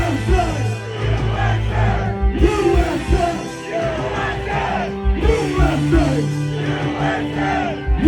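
Live country rap band music with a heavy drum beat and singing or yelling over it.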